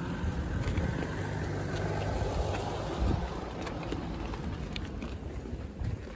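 Wind rumbling on the phone's microphone while walking on gravel, with a few faint crunching footsteps.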